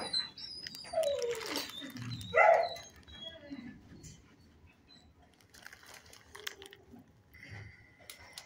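Dog vocalizing: a short falling whine about a second in, then a single loud bark about two and a half seconds in, after which it goes quiet apart from faint ticks.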